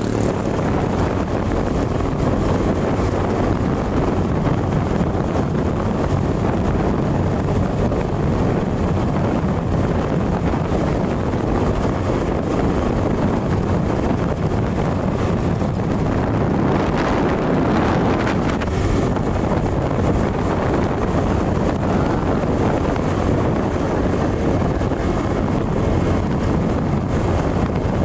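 Riding a small motorcycle at steady speed: wind rushing over the microphone along with the engine running evenly, with a brief swell in the rush about two-thirds of the way through.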